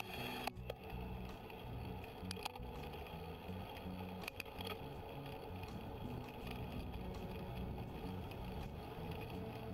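Mountain bike being ridden: steady rolling noise with a few sharp rattling clicks.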